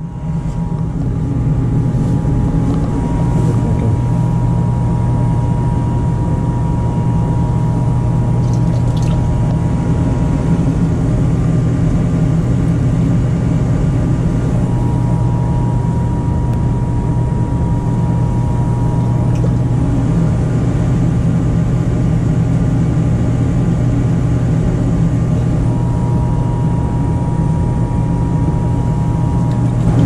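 Goodman gas furnace running: a steady low mechanical hum with a few faint steady whine tones above it.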